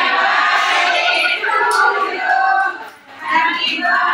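A group of women singing together in chorus, many voices at once, with a short break about three seconds in.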